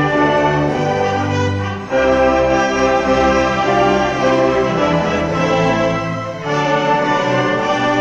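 Full orchestra of strings and wind band playing sustained chords with brass to the fore, with a brief break about two seconds in and another near six and a half seconds before each new chord comes in.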